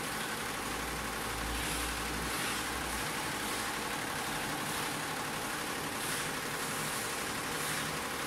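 Ten-head, nine-needle Butterfly embroidery machine stitching at about 750 rpm: a steady, dense mechanical clatter of the needle bars with a faint steady hum, and a low rumble in the first few seconds.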